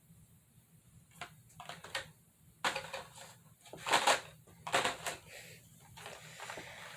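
Hot Wheels blister packs being handled: plastic and cardboard packaging crinkling and clicking in short, irregular bursts.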